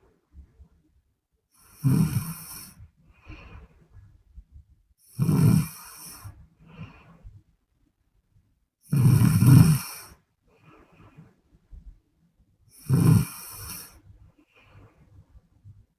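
A woman snoring: four loud snores about every four seconds, each followed by a fainter breath.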